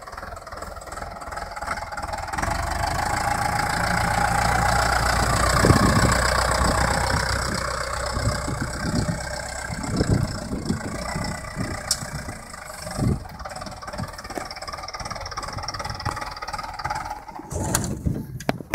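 A vehicle engine running, swelling to its loudest about six seconds in and fading away by about eight seconds, followed by a quieter background with irregular low thumps.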